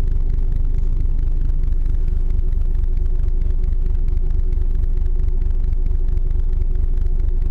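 Icebreaker ship's engine running, a steady low rumble with fast even pulsing and a constant hum.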